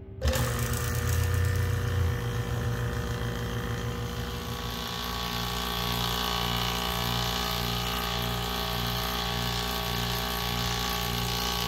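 Yellow Jacket SuperEvac 6 CFM vacuum pump switching on and running steadily while it pulls a vacuum on an empty recovery tank. It starts abruptly and is heaviest for the first couple of seconds, then settles into an even run with a slow regular pulse.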